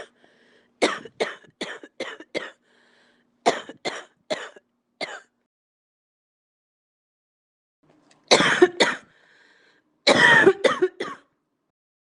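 A person coughing: a run of about eight short coughs over the first five seconds, then after a pause two longer, louder coughing bouts near the end.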